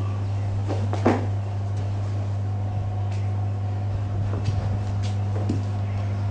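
Grapplers' bodies and limbs bumping and shifting on rubber floor mats: a thump about a second in and a few softer knocks later, over a steady low hum.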